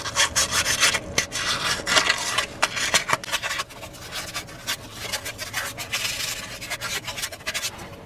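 400-grit sandpaper rubbed by hand in quick back-and-forth strokes against the engine's oil filter adapter mounting surface, scrubbing off leftover gasket residue. The strokes ease off a little about halfway through.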